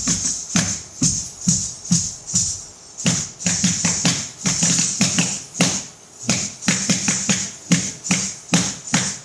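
Rhythmic percussive dance music: drum strokes and sharp beats over steady jingling bells, with brief lulls about three and six seconds in.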